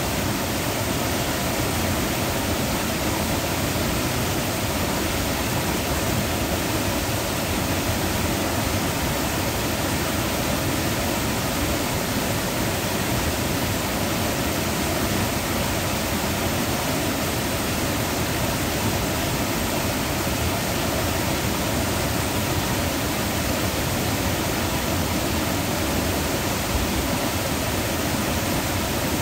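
Water pouring over a low stone dam's two spillways onto rocks below: a steady rushing.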